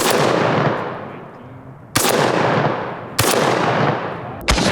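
Four shotgun shots, unevenly spaced, each followed by a long rolling echo that slowly fades.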